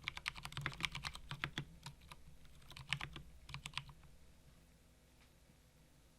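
Typing on a custom mechanical keyboard fitted with Cherry MX switches: a quick run of key clicks, a few more strokes about three seconds in, then the typing stops about four seconds in.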